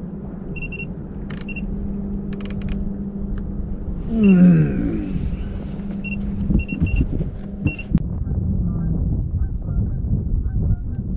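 Steady low hum of a boat's motor, with short high beeps in small groups and, about four seconds in, one loud honk that falls in pitch.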